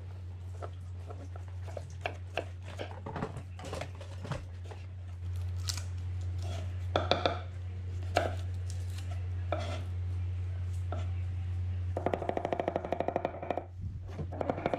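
Kitchen knife cutting garlic on a chopping board: scattered single cuts and taps, then a quick run of rapid chops near the end, over a steady low hum.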